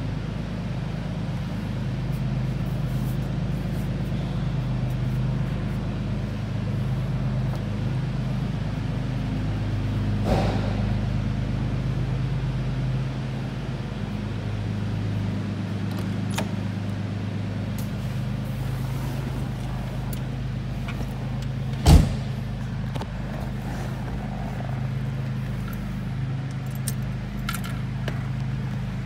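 Rolls-Royce Silver Cloud II's 6.2-litre V8 idling steadily, with a single sharp knock about two-thirds of the way through.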